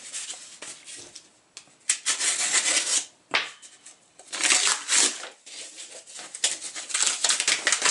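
Paper mailing envelope handled and torn open: quiet at first, then several bursts of crackling, rustling paper from about two seconds in.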